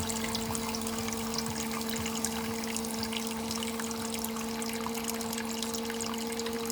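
Small electric motor of a toy mini washing machine humming steadily while water swirls and sloshes in its tub.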